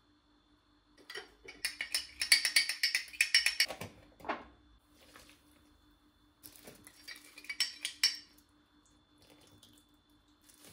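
Kitchenware clinking and clattering: quick runs of small hard knocks of metal or ceramic against dishes, in two bursts with a pause between.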